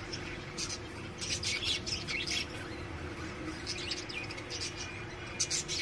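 Pet budgerigars chirping in scattered bursts of quick, high chirps over a steady low hum.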